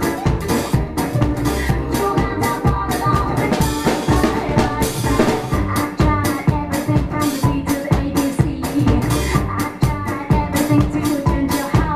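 An electro swing track with a live acoustic drum kit played along to it: a steady swing beat of kick, snare and cymbals over the recorded band. A brief wash of high noise stands out about four to five seconds in.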